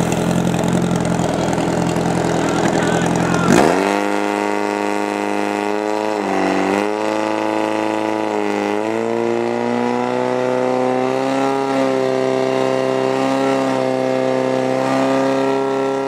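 Portable fire pump engine running hard at high revs, pumping water out through the hoses to the nozzles. A sharp crack about three and a half seconds in, after which the engine note shifts, dips twice, then climbs slowly.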